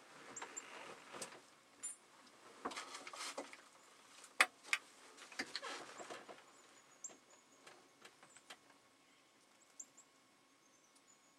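Faint rustling and scattered sharp clicks, busiest in the first six seconds and then dying down, with a few faint high chirps near the end.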